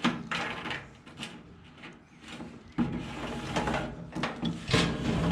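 Knocks, clicks and rattling of hardware being handled, with a sharp knock at the start and a busier stretch of clattering from about three seconds in.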